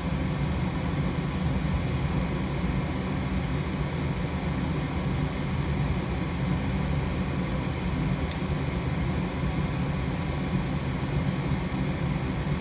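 Steady hum of a gas heating unit's fan motor running during a heat call.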